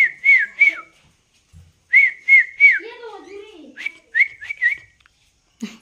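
Short, high whistled chirps in quick runs of three to five, each note held briefly and then dipping in pitch, with a short faint murmur in the middle.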